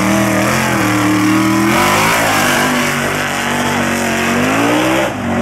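Mega truck's engine revving hard under full throttle as it slings dirt around the track. The pitch holds high, dips briefly a little under two seconds in, climbs again, then drops off near the end as the driver lets off.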